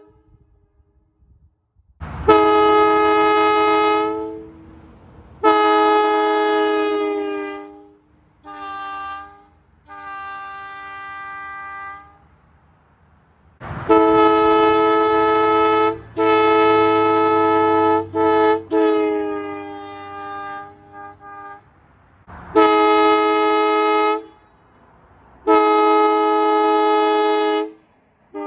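Wabco AA-2 two-chime locomotive air horn sounding a steady two-note chord in about ten separate blasts. Most blasts last one to two seconds, with a few short toots and some quieter, weaker blasts between the full ones.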